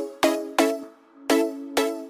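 Background electronic music: a melody of sharply struck notes, about five in two seconds, each ringing and fading.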